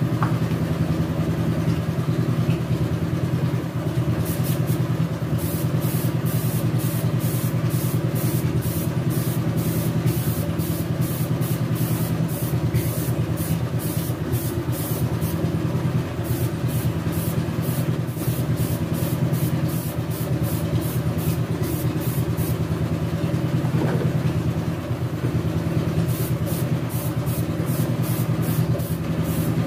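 Air compressor running steadily with a low hum, feeding a gravity-feed spray gun that is spraying silver metallic base coat; the gun's air hiss comes as a fast pulsing hiss through parts of the spraying.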